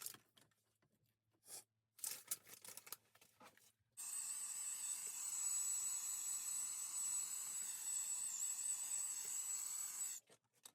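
A few light knocks and clicks, then a small electric motor runs steadily for about six seconds with a high whine, starting and cutting off suddenly.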